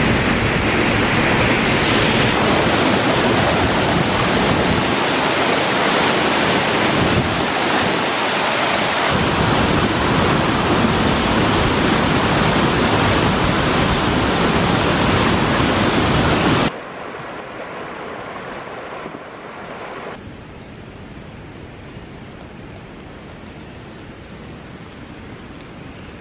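Loud steady rush of a waterfall and river rapids. It cuts off suddenly about two-thirds of the way through, leaving a much quieter steady hiss.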